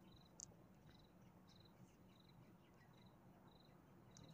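Faint cricket chirping: short pulsed chirps repeating about every two-thirds of a second over a low background hum, with one small click about half a second in.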